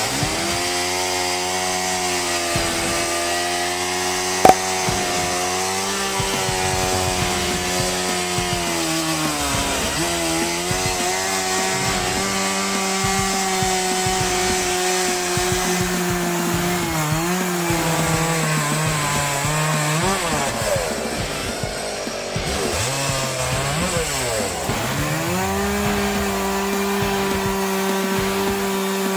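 Mini chainsaw running at high speed while cutting wood in a homemade chainsaw mill. Its pitch sags a few times under load and climbs back, dipping deepest about two-thirds of the way through. There is a sharp click about four and a half seconds in.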